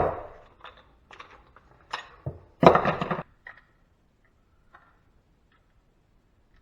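Hand tools working on a stuck fitting in a metal electrical panel: a sharp knock, a few light clicks and taps, and one loud scraping crunch a little under three seconds in, then it goes almost quiet.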